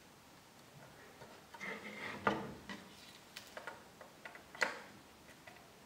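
Small plastic clicks and ticks of jumper-wire connectors being handled and pushed onto header pins, with a short rustle of wire about a second and a half in. The sharpest clicks come a little after two seconds and again after four and a half seconds.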